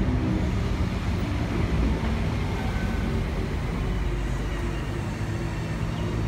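Great Western Railway diesel passenger train moving alongside the platform, its engines giving a steady low drone with a faint high whine.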